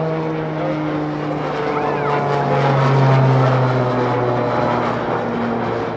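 Beechcraft Starship's twin Pratt & Whitney PT6A pusher turboprops droning in a flyby, swelling to its loudest about three seconds in, with the propeller tone dropping in pitch as the plane passes.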